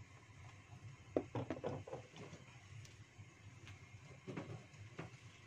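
Light knocks and clatters of a wok being handled on a gas stove's grate, one cluster about a second in and a shorter one near the end.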